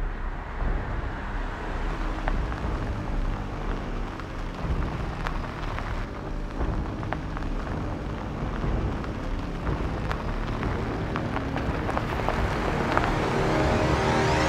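A Mercedes sedan driving: a steady low rumble of engine and tyres with scattered small clicks, getting louder over the last couple of seconds.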